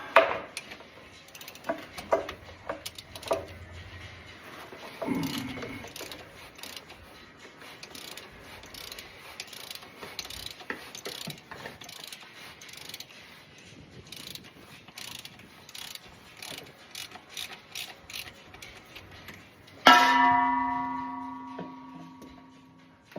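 Ratchet spanner clicking in irregular runs while working the gearbox oil plugs. Near the end comes a loud metallic clang that rings on for a couple of seconds.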